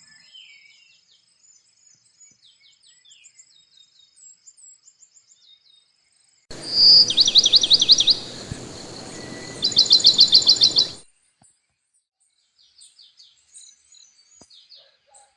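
Birds chirping: scattered faint high chirps, then a louder stretch with a background hiss starting a little past six seconds in. It holds two loud, fast trills of repeated downward-sweeping notes before cutting off abruptly about eleven seconds in, after which the faint chirping goes on.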